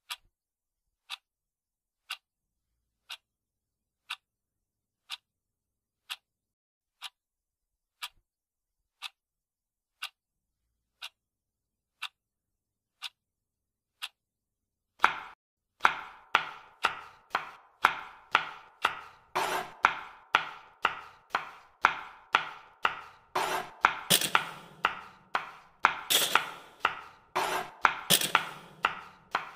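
A clock ticking about once a second, alone against dead silence. About halfway through it gives way to rapid knocks of a cleaver chopping an onion on a plastic cutting board, several strikes a second.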